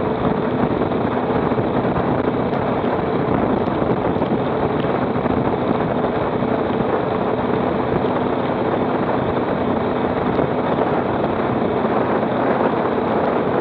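Motorcycle riding at a steady speed: wind rush on the microphone over the engine's steady running.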